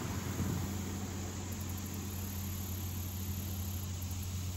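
A steady low mechanical hum over an even hiss, with no sudden sounds.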